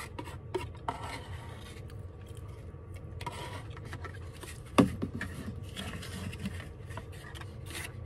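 Plastic spoon scraping and rubbing around a paper bowl in a run of short strokes as the last of the oatmeal is scooped up, over a steady low hum. One louder brief sound, falling in pitch, comes about five seconds in.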